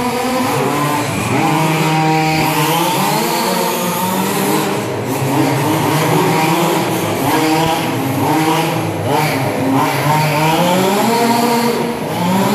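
Several radio-controlled off-road racing cars, their motors revving up and down over and over and overlapping as the cars accelerate and brake around the track.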